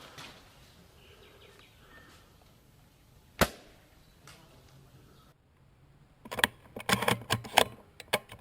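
A single sharp crack, most likely a shot from a custom Tokyo Marui VSR bolt-action spring airsoft sniper rifle, about a third of the way in. Near the end comes a quick run of clicks and knocks.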